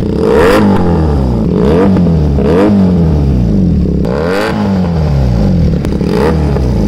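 A Benelli inline-twin motorcycle engine is revved again and again while standing. It breathes through aftermarket slip-on mufflers, and quick throttle blips rise and fall back to idle about once a second.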